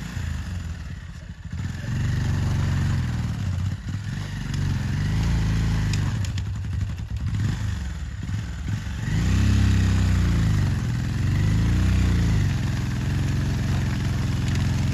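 Motorcycle engine running under load, revving up and dropping back several times in quick swells of pitch.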